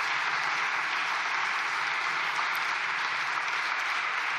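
Steady applause from a large group of deputies clapping in the benches.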